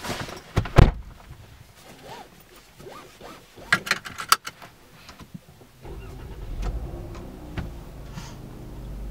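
Inside a car: the driver's door thumps shut as someone settles into the seat, followed by a few sharp metallic clicks about four seconds in. About six seconds in the engine starts and settles into a steady low idle.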